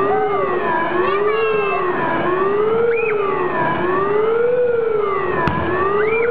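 A siren wailing, its pitch rising and falling smoothly about once every second and a half. A single sharp click is heard near the end.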